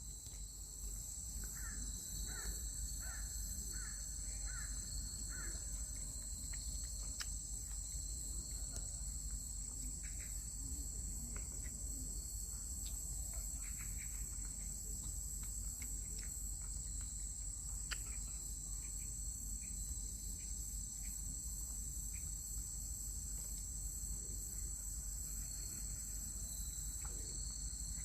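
Crickets chirring steadily in a high, even chorus, over a low outdoor rumble. In the first few seconds comes a faint run of about six short repeated calls.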